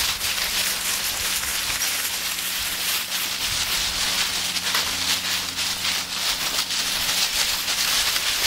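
Dry fallen leaves crunching and rustling without a break under the paws of several Siberian huskies and the feet of the person walking them, a dense run of small crackles.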